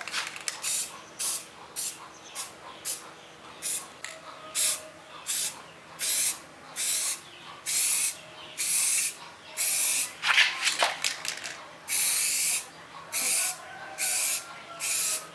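Repeated short bursts of spraying hiss, about one every three-quarters of a second, growing from quick puffs to longer half-second sprays. A faint steady hum runs underneath.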